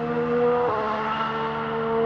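Formula 1 car's 1.6-litre V6 turbo-hybrid engine running at a steady high rev note. Its pitch steps down once about two-thirds of a second in, as at an upshift.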